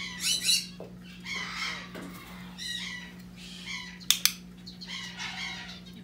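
Male eclectus parrot giving several harsh squawks, the loudest right at the start. About four seconds in, a training clicker gives a sharp double click.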